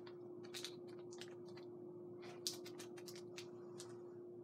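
Small bag and the paper inside it crinkling and rustling in the hands as stitch markers caught on the paper are worked free, heard as scattered soft crackles and clicks. A steady low hum runs underneath.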